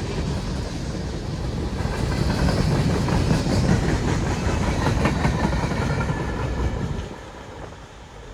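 Freight train cars rolling past, wheels clattering and clicking over the rail joints. The noise drops away sharply about seven seconds in.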